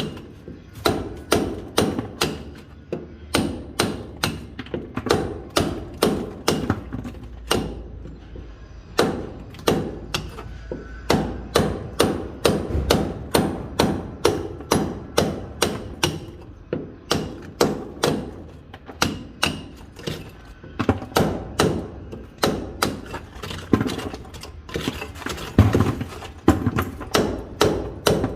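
Hand hammer striking a chisel into masonry over and over, sharp blows at about two a second in an uneven rhythm, with short pauses twice.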